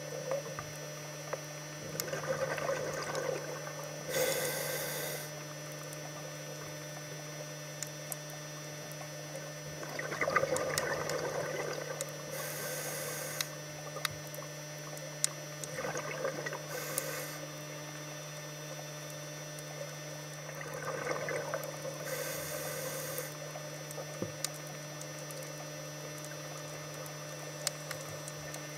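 Scuba regulator breathing underwater: about four breath cycles, each a gurgle of exhaled bubbles followed by a short hiss of inhaled air. A steady low hum runs beneath.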